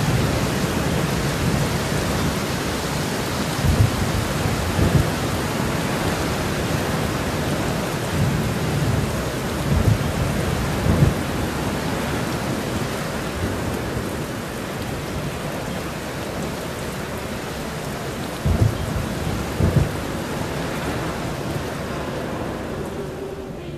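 Thunderstorm: steady rain hiss with short low booms of thunder, coming in pairs about a second apart, three times.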